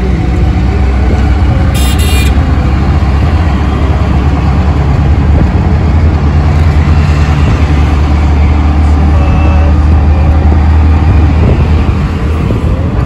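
Auto-rickshaw engine running steadily under way, heard from inside the open-sided cab with road and traffic noise. A short horn toot sounds about two seconds in.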